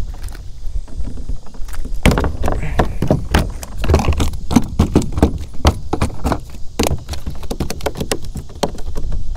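A freshly landed bass flopping on the deck of a plastic kayak: a rapid, irregular run of knocks that starts about two seconds in and goes on until near the end.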